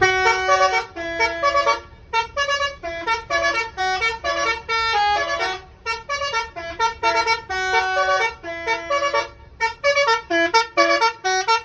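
Telolet bus horn driven by an MS7 angklung module playing a fast tune of short, shifting horn notes, in phrases broken by brief pauses.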